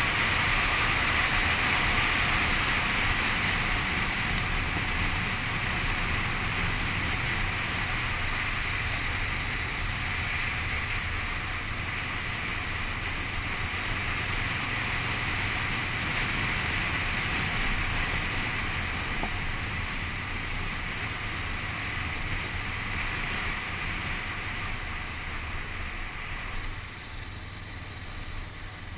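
Wind rushing over the microphone of a camera mounted on a moving motorcycle, with the engine running steadily underneath. The rush eases gradually and drops a little near the end.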